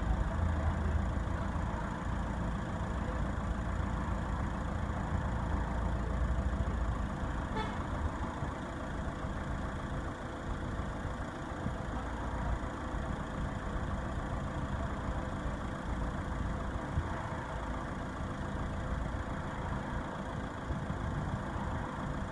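A vehicle engine running steadily, with a constant whine over the low rumble.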